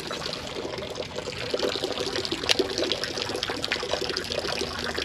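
Creek water trickling and splashing steadily, with one sharp click about two and a half seconds in.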